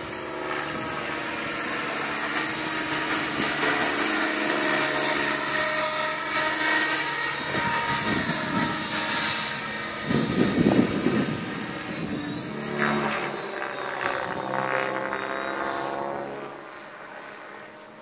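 Align T-Rex 700 radio-controlled helicopter in flight, its motor and rotor whine sounding in several tones. It grows louder as it passes close, with a brief low rushing swell in the middle. Then the pitch falls and the sound fades as it flies off into the distance.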